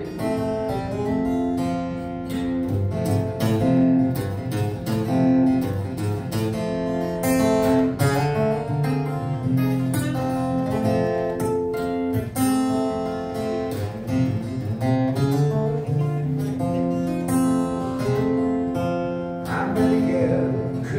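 Solo steel-string acoustic guitar played fingerstyle in a ragtime blues, with repeating bass notes under a picked melody in an instrumental passage.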